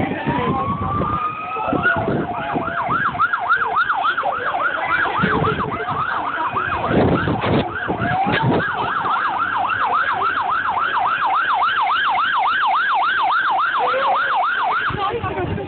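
Emergency-vehicle siren: a tone winds upward for about two seconds, then switches to a fast yelp, sweeping up and down about three times a second, and stops near the end.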